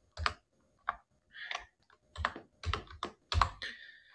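Typing on a computer keyboard: about eight irregular keystrokes.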